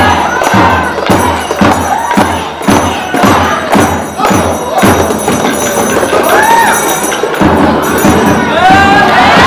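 Tibetan dance music with a melody over a steady drumbeat of about two strikes a second, in time with dancers beating handheld Tibetan drums. Near the end the music stops and the audience breaks into cheering and whoops.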